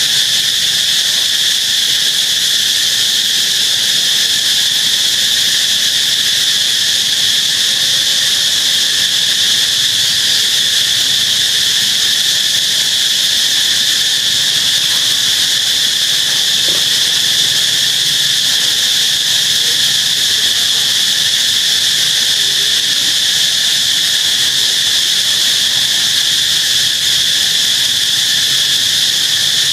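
Chorus of insects in full song: a steady, shrill drone that holds without a break.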